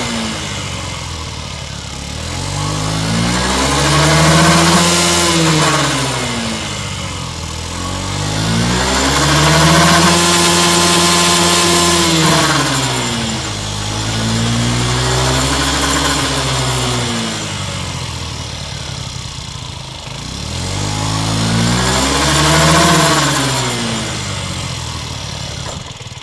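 Honda Gyro Canopy scooter engine revved up and back to idle four times, once held high for a few seconds, with a hiss that rises and falls with engine speed. The abnormal noise is suspected to come from the CVT drive belt, worn after 20,000 km.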